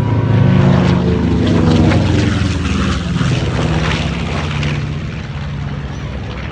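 The twin Wright R-2600 radial engines of a PBJ-1J (B-25 Mitchell) bomber running with a steady propeller drone. The pitch drops slightly about two seconds in and the sound fades as the aircraft moves away.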